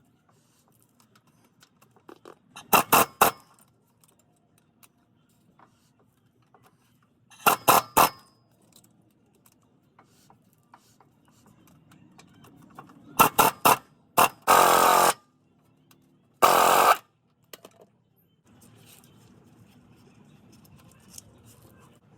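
Power tool run in five short bursts, tightening bolts: the first three come as quick rattling strokes, the last two as steadier runs of under a second.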